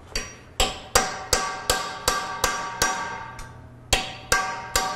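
Hammer blows on a steel chisel driven into the rusted joint of an old KUKA industrial robot arm, about three strikes a second with a short pause partway through. Each blow rings like metal: the chisel is being used to break the rust so the arm can come apart.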